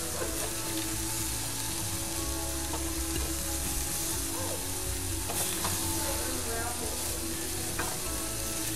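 Panko-breaded chicken pieces sizzling steadily as they fry in oil in a stainless steel skillet, with a wooden spatula scraping and stirring them now and then. A steady low hum runs underneath.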